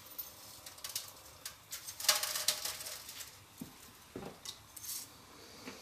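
Scattered light clicks and taps, with a brief pattering rustle about two seconds in, as pickling spice is tipped into a pot of vinegar brine.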